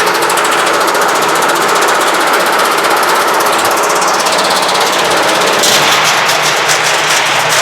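Haier washing machine running, its stainless steel tub on welded car suspension springs banging and rattling loudly in a rapid, continuous knocking. About five and a half seconds in the knocking turns into a more distinct rapid beat.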